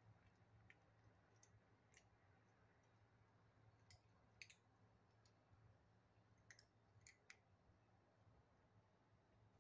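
Near silence: faint room tone with scattered soft clicks, bunched about halfway through and again a little later, from kittens crunching dry kibble at plastic food bowls.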